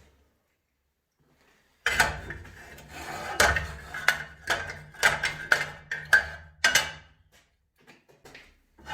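A run of sharp metal clanks and knocks, about two a second, starting about two seconds in and stopping after about five seconds, with a few fainter ticks near the end.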